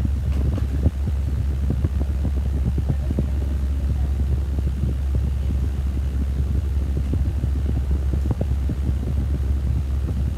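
Steady low rumble on the phone's microphone, with many small irregular knocks and rustles over it: noise from the microphone being rubbed or blown on, not from any vehicle.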